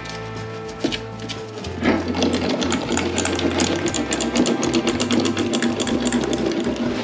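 A small power tool starts about two seconds in and runs with a rapid mechanical chatter, over background music.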